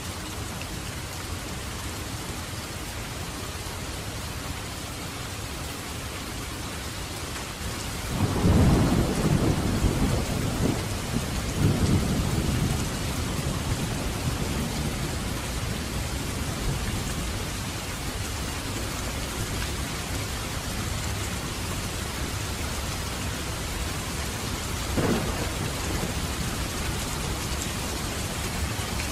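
Steady rain, with a loud low rumble of thunder about eight seconds in that fades over several seconds, and a shorter, fainter rumble near the end.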